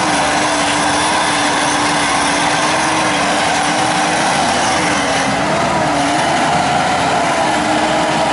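Electric winch on a Mitsubishi Pajero's front bumper hauling in its line under load: a steady whine that sags in pitch a couple of times past the middle as the stuck vehicle is pulled up the muddy slope.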